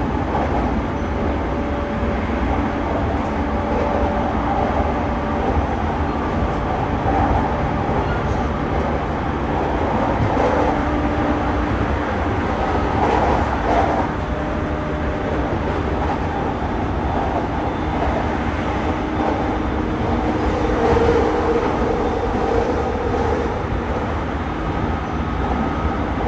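JR East E217 series electric train heard from inside motor car MoHa E217-46 while running between stations: a steady rumble of wheels on rail with a faint, steady motor whine.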